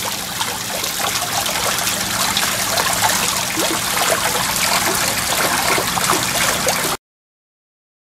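Water splashing and trickling down the cups of a rain chain fountain in a steady stream of small drips, with a faint steady low hum underneath. It cuts off suddenly about seven seconds in.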